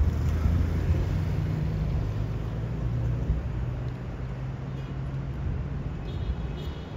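Low steady hum of a vehicle engine running at idle, with street traffic.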